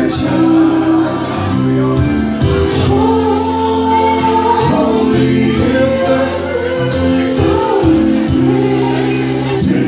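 Live band music with a male vocal group singing in harmony over it, holding long notes, with bass and percussion keeping a steady beat.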